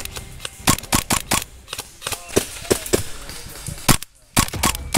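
Airsoft guns firing: a dozen or so sharp single shots in an uneven series, with a brief break about four seconds in.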